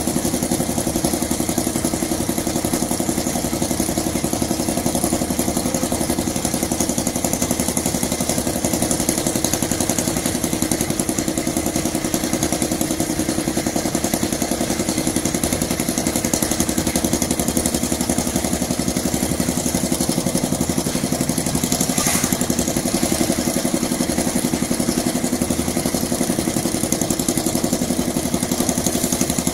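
Small engine on concrete-pouring machinery running steadily at an even speed, with one brief click about three quarters of the way through.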